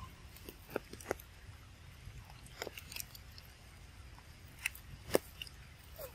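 Irregular small clicks and crunches of a young macaque chewing food held to its mouth, the loudest about five seconds in.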